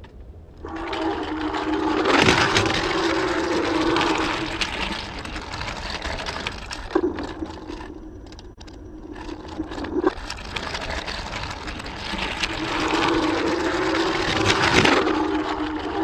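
A battery-powered Thomas and Friends toy train running on its track, its motor giving a steady whirring hum with clacks from the wheels and track. It grows louder twice as it passes close, fading in the middle.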